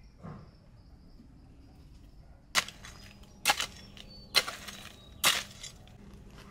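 Four sharp knocks, evenly spaced a little under a second apart, each with a brief tail.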